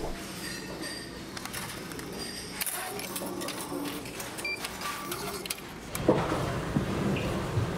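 Meal-ticket vending machine clicking and whirring as it issues a ticket. About six seconds in, a knock is followed by louder background noise.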